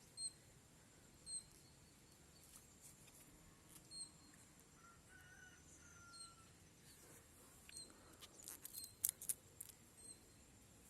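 Quiet garden with faint short high chirps from a small bird every second or two; near the end, a run of sharp crunches and clicks of someone biting and chewing raw sweet corn kernels off the cob.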